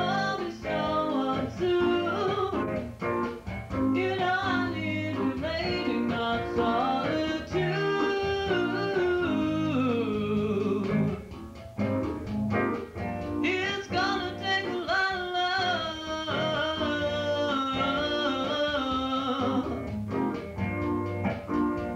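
A woman singing with a band, guitar accompanying: long held vocal notes that bend in pitch over a steady beat, with no clear words.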